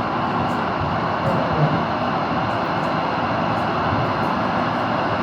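A steady, even rush of noise with no clear rhythm or tone, with a few faint clicks over it.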